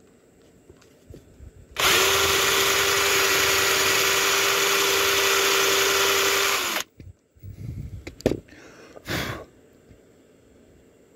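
Power drill boring into a small wooden box, running at a steady speed for about five seconds and then stopping abruptly. A few short knocks follow.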